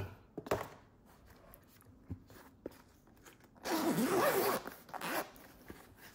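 Zipper of a headphone carrying case being unzipped: one long pull about three and a half seconds in, then a short second pull about a second later.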